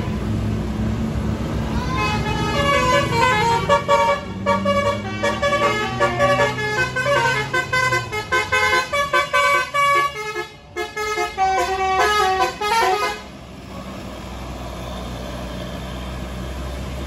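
Tour bus's basuri multi-tone 'telolet' horn playing a quick tune of stepped notes for about ten seconds, then cutting off abruptly. A low engine rumble runs under it and is left on its own once the tune stops.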